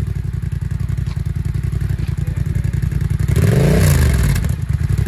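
2022 Yamaha YZF-R7's 689 cc parallel-twin engine idling through an M4 exhaust with a dB-killer insert fitted, given one quick throttle blip about three and a half seconds in that rises and falls back to idle.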